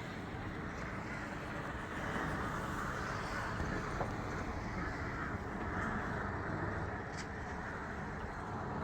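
Steady outdoor street noise with a low rumble of traffic, and a faint click about four seconds in and another after seven seconds.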